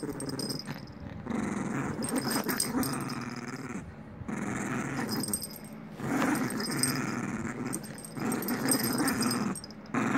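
Maltese puppy growling in several long bouts with short pauses between them, playful tug-of-war growls while she grips and tugs a rope toy.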